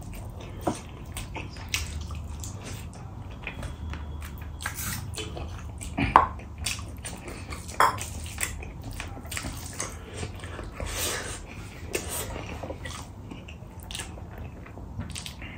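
Close-up eating sounds: wet chewing and lip smacking, with fingers squishing and mixing rice and chicken curry on a steel plate, in a string of short wet clicks. The sharpest smacks come about six seconds in and again near eight seconds.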